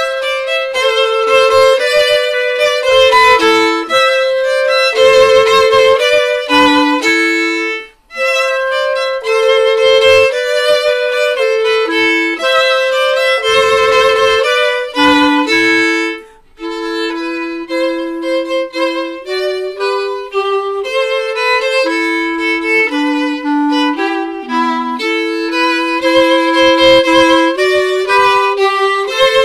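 Violin and clarinet duo playing a traditional Provençal folk tune, two melody lines together, with short breaks between phrases about eight and sixteen seconds in.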